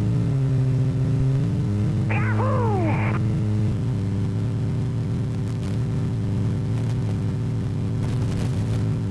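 Single-engine light aircraft's piston engine droning steadily, heard from inside the plane in flight. A brief falling whistle-like tone sounds about two seconds in, and the engine note shifts slightly near four seconds.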